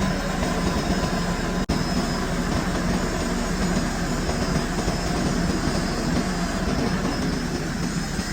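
Steady running noise of a metal lathe in a machine shop, with an even hum. It cuts out for an instant a little under two seconds in.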